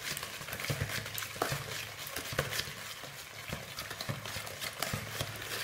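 Wire whisk beating a thick mixture of soft butter, sugar, oil and egg in a plastic bowl: quick, irregular scrapes and clicks of the wires against the bowl as the ingredients are mixed until smooth.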